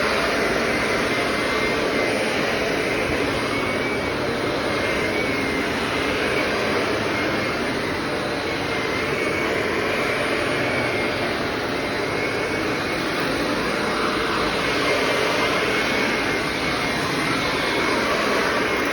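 Shark Navigator Anti-Allergen+ upright vacuum cleaner running steadily while cleaning the floor: a loud, even rushing noise with a high whine that wavers slightly in pitch.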